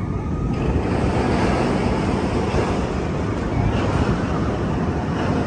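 Steady rush of wind buffeting the microphone, over the low rumble of the Flying Aces roller coaster train running along its track.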